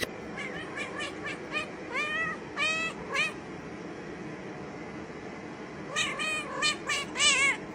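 A cat meowing in a quick string of short, rising calls. It falls quiet for a couple of seconds in the middle, then calls again several times near the end.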